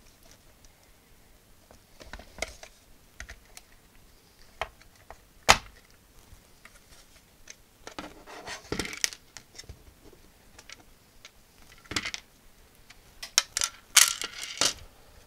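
Plastic case of an Atari XC12 cassette unit being handled as its top cover is lifted off and set down: scattered clicks and knocks. There is one sharp knock about five seconds in and a run of knocks and rattles near the end.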